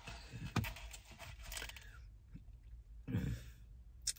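Faint mouth and throat sounds of a person swallowing and breathing after a sip of soda through a straw, with a short throat sound about three seconds in.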